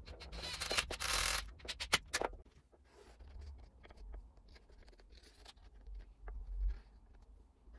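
A marker pen scratching in short strokes across a textured painted board, tracing an outline around a hung saw. It follows a few loud scuffing and knocking handling noises in the first two seconds.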